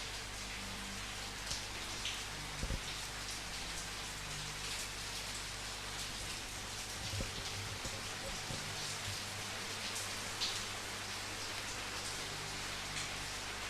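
Steady rainfall, an even hiss with individual drops landing louder here and there.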